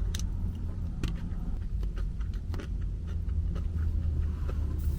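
Close-miked eating sounds: a person chewing, with small wet mouth clicks every second or so, over a steady low rumble.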